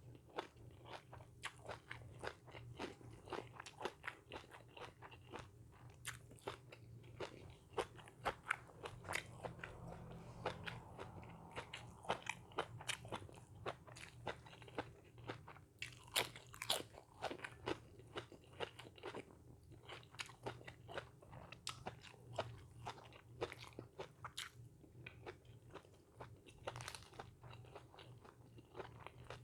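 Close-up eating: a person chewing and biting food with many quick, irregular crunches, over a low steady hum.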